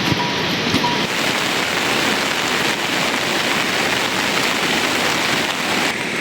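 Rain falling steadily, an even hiss with no distinct drops standing out.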